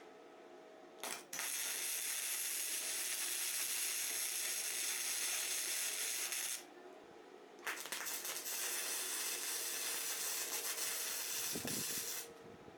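Electric arc welding on scrap steel: a brief strike about a second in, then two steady crackling, hissing weld runs of about five seconds each, each starting and stopping abruptly.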